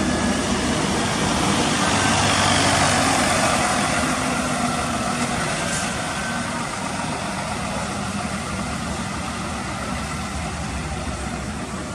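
Scania K410IB coach's six-cylinder diesel engine running as the bus drives slowly past close by. It is loudest about two to three seconds in, then slowly fades as the bus pulls away.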